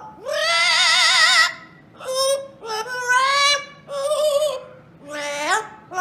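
Yellow-naped Amazon parrot singing in an operatic voice: one long held note with a strong vibrato, then several shorter phrases, some sliding upward in pitch.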